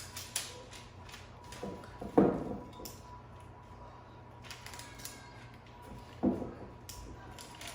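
Cookie scoop working through chilled oatmeal cookie dough and dropping portions onto a parchment-lined baking sheet: a few separate soft knocks and clicks, the loudest about two seconds in.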